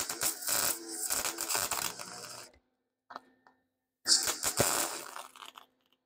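MIG welding arc crackling and spattering in two bursts, the first about two and a half seconds long and the second about two seconds, with a short silence between.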